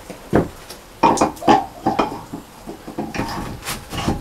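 A cylinder head of a small four-cylinder marine diesel being set down onto its gasket and studs: a string of irregular metal knocks, clatters and short scrapes as the heavy part is handled into place.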